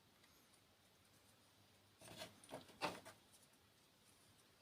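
Near silence, then about two seconds in a few faint clicks and scrapes of a small tool working the metal contact of an Xbox 360 controller battery holder, bending it for better contact.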